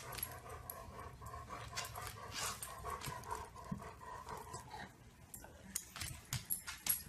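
A dog panting softly, with a few light taps and rustles.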